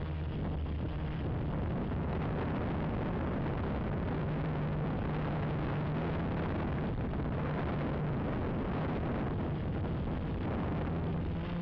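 Gaui 330X quadcopter's motors and propellers humming steadily in flight under loud rushing air noise.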